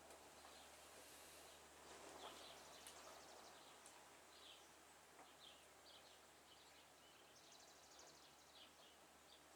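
Faint birds chirping in the background: scattered short chirps and a couple of rapid trills, over a low steady hum.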